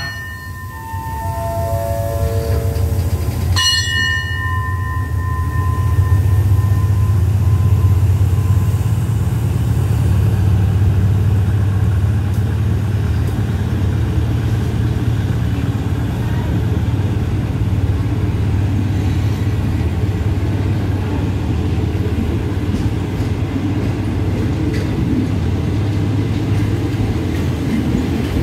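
Diesel-hauled passenger train rolling along the station platform, with a steady low rumble of the locomotive and coaches. It opens with a falling five-note electronic chime from the station PA. About three and a half seconds in comes a single bell-like strike that rings briefly.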